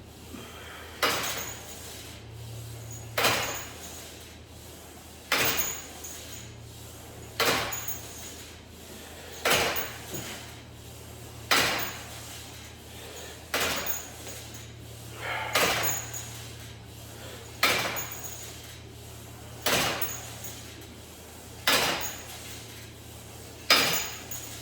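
Cable machine weight stack clanking as it is set down at the end of each cable crunch rep, one sharp clank about every two seconds, about twelve in all.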